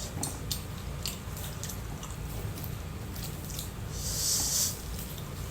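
Close-miked chewing of crunchy mango, with crisp crunches in the first second or so and quieter chewing after, and a short hiss about four seconds in.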